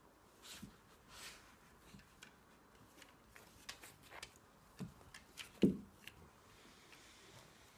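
Scattered light clicks and scuffs of a wire-haired dachshund's claws and a rope toy on a wooden deck as the dog plays, with one louder thump about five and a half seconds in.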